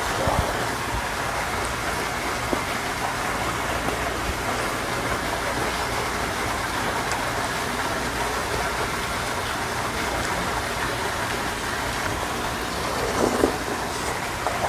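Steady, even hiss of water with a faint low hum beneath it, and a short louder sound near the end.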